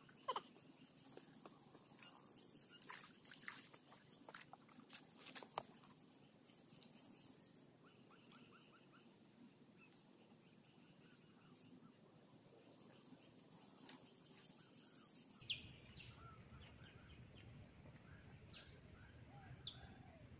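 Faint open-air ambience: a small animal's rapid, high trill comes in short bursts three times, with scattered light clicks in the first few seconds and faint chirps later.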